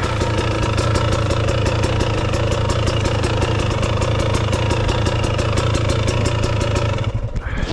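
Dirt bike engine idling steadily with an even pulsing beat, then cutting out about seven seconds in.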